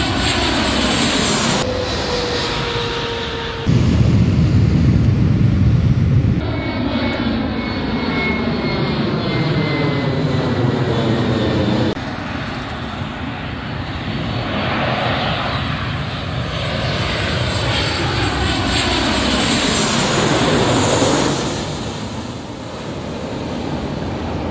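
Twin-engine jet airliner's engines on landing approach: a loud continuous jet roar with whining tones that fall in pitch as the aircraft passes. It changes abruptly a few times where separate clips are cut together.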